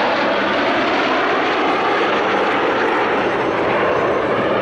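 Formation of Dassault/Dornier Alpha Jets flying overhead, their twin Larzac turbofan engines making loud, steady jet noise.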